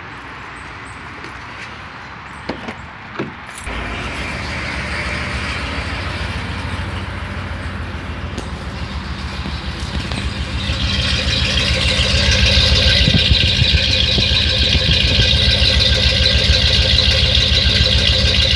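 Pickup truck engine starting up about three and a half seconds in and running steadily, its exhaust note getting louder and raspier from about ten seconds in as it is heard close to the open tailpipe.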